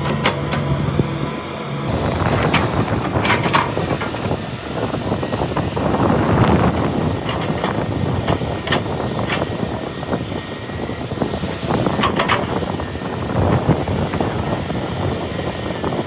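Heavy diesel earthmoving machinery at work. A steady engine hum in the first two seconds gives way to a loud, noisy rumble, with sharp clanks and knocks a few seconds in and again about twelve seconds in.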